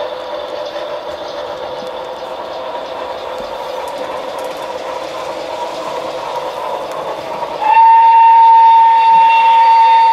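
A passing model freight train gives a steady running hum and rattle. About three-quarters of the way in, the model locomotive's sound system starts a loud, long, steady single-note horn blast.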